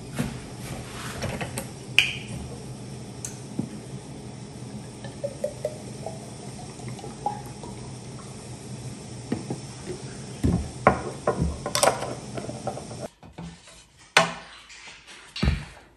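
Light clinks and knocks of dishes being handled in a kitchen, scattered and irregular, over a steady low hum, with a few louder knocks near the end.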